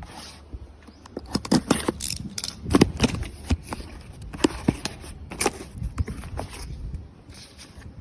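An irregular run of sharp clicks and knocks, thickest from about a second in to about six seconds in, over a low rumble.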